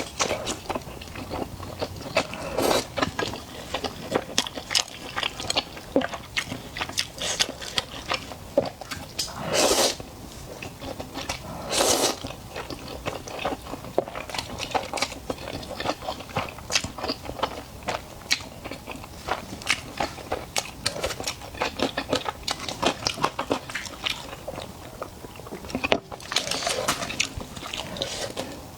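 Close-miked eating sounds: chewing and biting with many small crunchy clicks, broken by a few longer, louder bursts.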